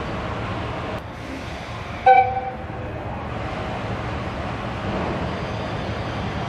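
EF210 electric locomotive's horn giving one short toot about two seconds in, over the steady low rumble of the locomotive and tank wagon rolling slowly while shunting.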